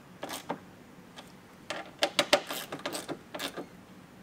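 Screws being fully tightened with a 90-degree Phillips screwdriver, securing a plastic mud flap to the fender: a run of irregular clicks and scrapes, busiest about two seconds in.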